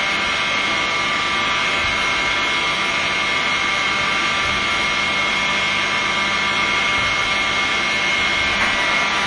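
Factory machinery running steadily: a constant whine with a steady high tone over a dense hum.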